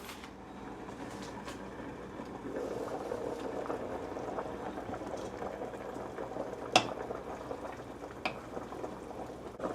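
Pot of beef and celery boiling, a steady bubbling that grows fuller a couple of seconds in, with two sharp clicks in the second half.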